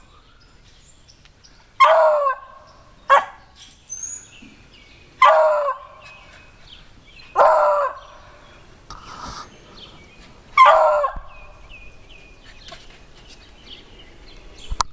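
Beagle baying at a squirrel up a tree: about five loud drawn-out bays a second or two apart, one of them short, each dropping in pitch at the end. Faint bird chirps come between the bays.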